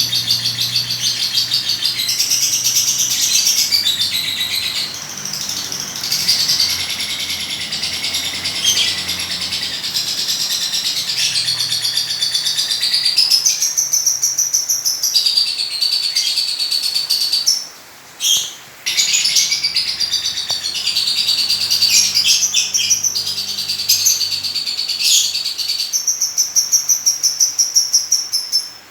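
A pet lovebird chattering in fast, high chirps and trills almost without a break, stopping briefly a little past the middle.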